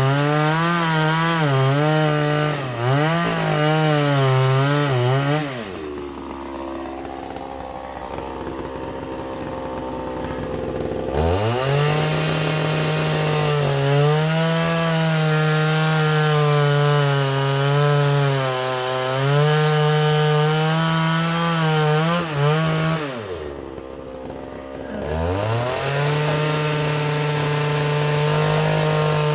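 Two-stroke chainsaw running at high revs, cutting pine with a wavering pitch as the chain bites. It twice drops to a low idle, for about five seconds from around 6 s in and for about two seconds near 23 s, and revs back up each time.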